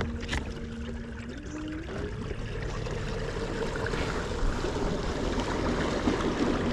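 Newport Vessels NK300 3 hp electric kayak outboard running with a steady whine that steps up in pitch about a second and a half in. Under it, water rushes along the kayak's hull, growing gradually louder as the boat picks up speed.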